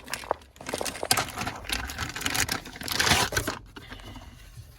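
Hands handling a polymer 60-round rifle magazine: light plastic clicks and rustling, loudest about three seconds in.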